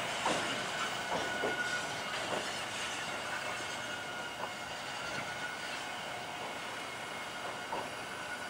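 Toronto TTC T-1 subway train rolling slowly past, its wheels clicking irregularly over the rail joints, with more clicks in the first few seconds. A faint steady high whine runs under the running noise.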